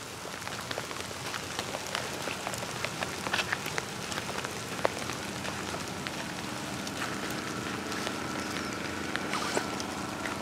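Light rain falling on dry leaves and brush: a steady patter with many separate drop taps scattered through it.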